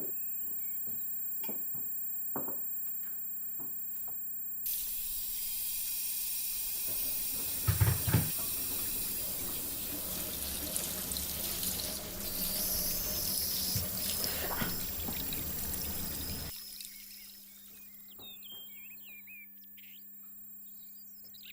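Water running from a tap for about twelve seconds, with a couple of low knocks about eight seconds in. Before it come faint clicks over a steady hum.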